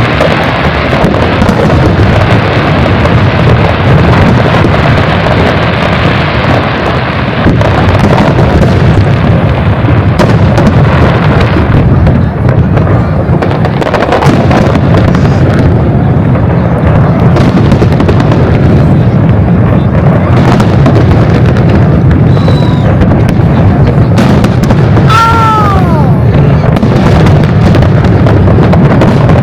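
Aerial fireworks bursting in a dense, continuous barrage: deep booms and crackling overlapping without a break, very loud throughout. A short whistle that falls in pitch cuts through about 25 seconds in.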